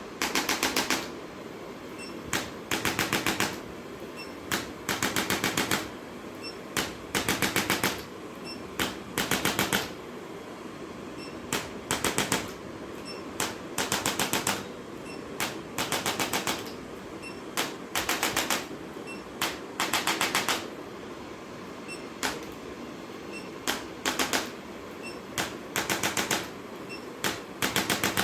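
Handheld percussion device firing short trains of rapid taps, each burst under a second, starting again every second or two, over a steady low hum.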